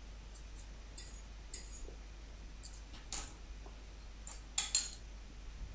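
Handheld metal garlic press crushing garlic cloves and being scraped clean with a small knife: a handful of short metallic clicks and scrapes, the loudest about three seconds in and two close together near the end.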